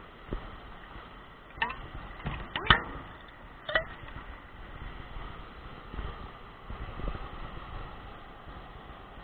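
Water splashing and sharp knocks as a landed fish is handled in shallow water, five sudden splashes or knocks in the first few seconds, the loudest about two and a half seconds in, then softer sloshing.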